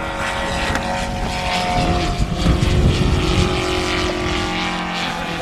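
Radio-controlled model airplanes' propellers humming in flight, their pitch drifting slowly as they pass. A low, gusty rumble on the microphone comes and goes near the middle.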